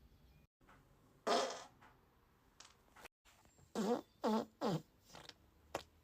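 A string of human farts cut together: a short airy one about a second in, then three quick pitched ones a little after the middle, each falling in pitch, and a few short blips near the end.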